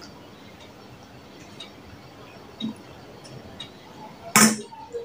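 Quiet eating sounds: fingers mixing rice on a stainless steel plate, with a few faint ticks. About four seconds in there is one short, sharp, loud noise.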